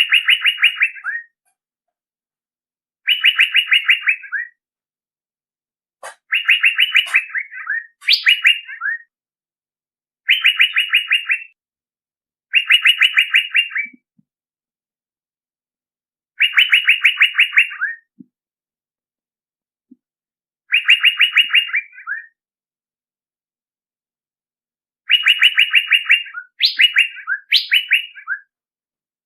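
Male Asian fairy-bluebird (cucak biru) lure call: a phrase of rapid chattering notes about a second and a half long, repeated about nine times with short pauses, some phrases ending in a few higher rising notes.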